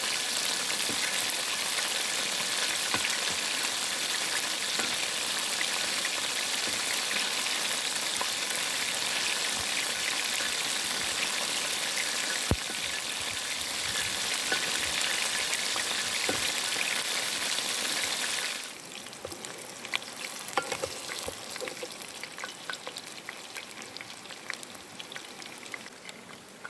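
Chicken wings deep-frying in hot oil: a steady, dense sizzle that cuts off sharply about two-thirds of the way through. Softer scattered crackles and light clicks follow.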